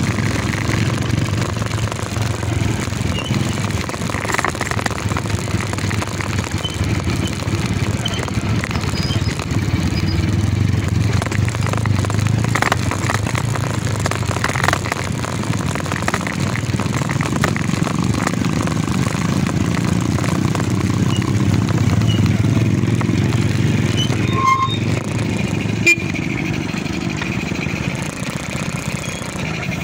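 Motorcycle engine running steadily while riding over a rough dirt trail, with a single sharp click near the end.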